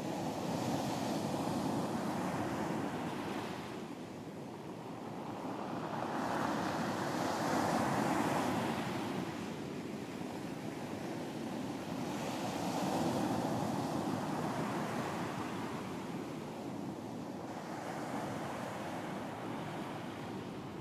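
Sea waves breaking and washing up a beach, the surf swelling and ebbing about every five to six seconds, with some wind.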